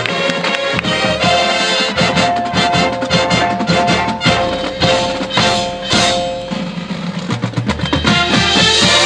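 Marching band playing: held brass chords over drums and front-ensemble percussion, with frequent sharp percussion hits.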